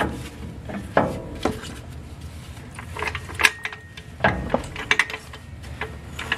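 Scattered metal clanks and knocks as a floor jack is slid into place under a truck's lower control arm with its coil spring set on it, with a brief ringing note about halfway through.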